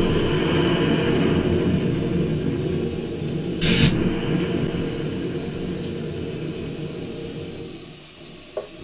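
Homemade turbojet engine running loudly on a burning flame, then fading steadily as the flame dies and the engine winds down. A brief sharp hiss breaks in about three and a half seconds in, and there is a small click near the end.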